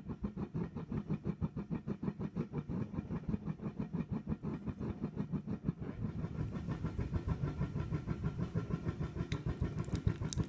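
Blacksmith's forge running with an even rhythmic pulsing of about seven beats a second, as the rebar arrowhead is heated to hardening temperature before the quench.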